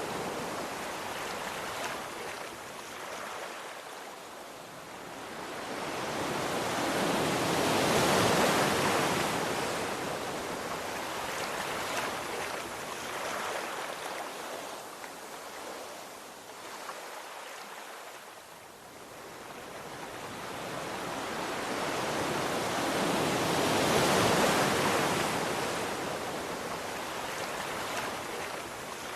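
Sea waves breaking and washing on the shore: two slow swells of surf, loudest about eight seconds in and again near the end, with a softer steady wash between them.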